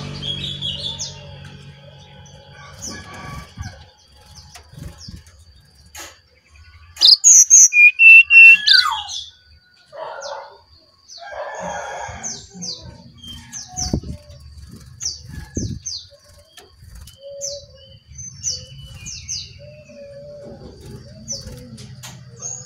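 Brown-chested jungle flycatcher calling: scattered short, high chirps, with a loud run of rapid notes about seven seconds in that lasts some two seconds.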